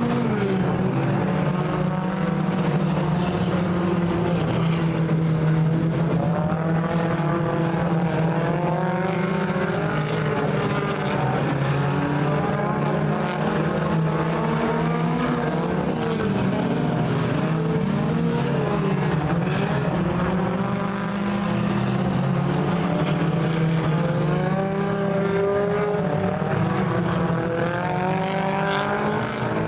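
A field of four-cylinder Pure Stock dirt-track race cars racing together, their engines overlapping and revving up and down in pitch as they go around the oval.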